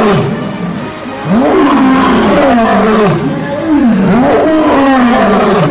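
Male lion roaring: a series of loud calls, each rising and then falling in pitch, coming one after another from about a second in.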